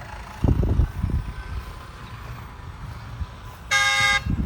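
A vehicle horn gives one short toot near the end, a single steady note. Before it, a low rumble comes in about half a second in and fades.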